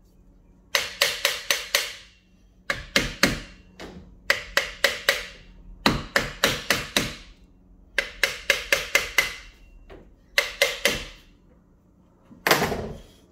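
A hammer tapping lightly on the end of a Century 3/4 HP pool booster pump motor to separate the end bell from the motor case. The taps come in six quick bursts of about five taps each. Near the end there is a short scraping sound.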